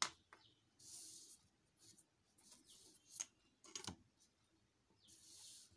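Faint handling sounds of a geometry compass and a plastic ruler on paper while the compass is opened to a 4 cm span: a few sharp clicks, and two brief scrapes, one about a second in and one near the end.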